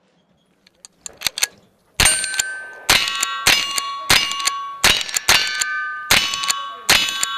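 Winchester 9422 lever-action .22 Long Rifle firing a steady string of shots at steel targets, about one every half second to second. Each shot is followed by the ringing ding of a steel plate being hit. A few light clicks come about a second in, before the first shot.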